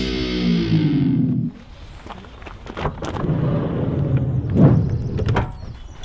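Intro music ending on a falling sweep in the first second and a half, then a Volkswagen Transporter campervan's sliding side door being unlatched and rolled open, its run loudest near the end with a few sharp clicks.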